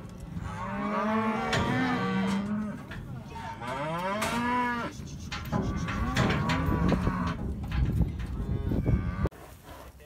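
Calves bawling in a cattle working chute: a string of long, overlapping calls that rise and fall in pitch, cutting off suddenly near the end.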